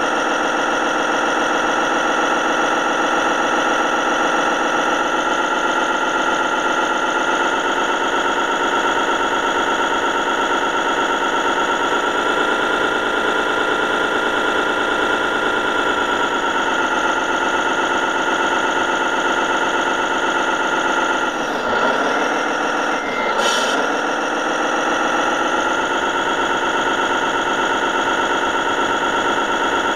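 Radio-controlled model truck driving with the camera on board: a steady, engine-like hum made of many tones. About two-thirds of the way through, the pitch dips sharply twice, a couple of seconds apart, and then recovers.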